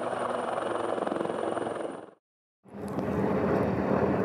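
Wildcat helicopter hovering low in a snow landing, its rotor and turbine noise steady; the sound fades out about two seconds in. After a brief silence, a helicopter's rotors and engines running on the ground carry on steadily.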